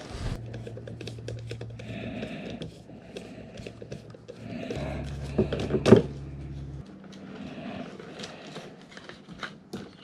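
Hands working a plastic kayak steering handle while threading a steel bicycle brake cable through it: many small clicks, taps and scrapes, with one louder knock about six seconds in.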